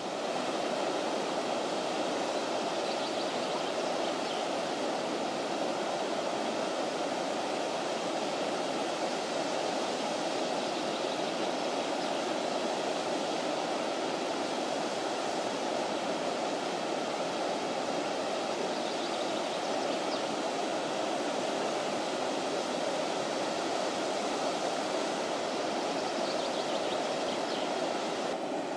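Elbe floodwater rushing and spilling over an embankment ledge into the Elbe-Havel Canal: a steady, unbroken rush of turbulent water.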